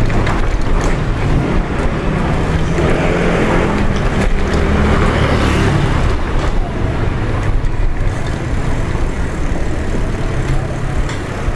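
Wind and road rumble on a bicycle-mounted action camera riding a rough street, with a motor vehicle's engine running nearby, most plainly in the first half.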